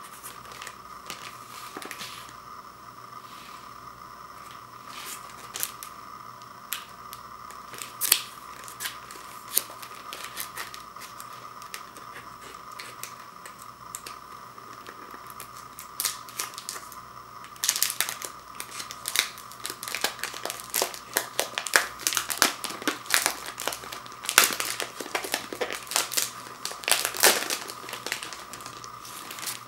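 Clear plastic wrap around a 12-inch vinyl record crinkling and crackling as hands handle and peel it. There are scattered sharp crackles at first, then a dense run of crinkling through the second half. A faint steady whine sits underneath throughout.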